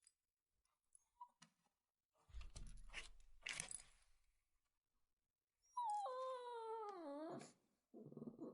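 A puppy crying: faint rustling, then one long whining cry, about a second and a half, that falls steadily in pitch, followed by a short low sound near the end.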